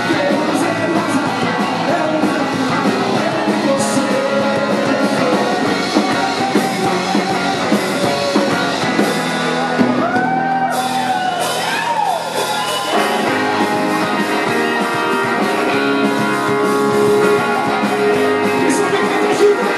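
Rock music from a band: guitars playing under a singing voice, with a stretch of sliding, bending notes about halfway through.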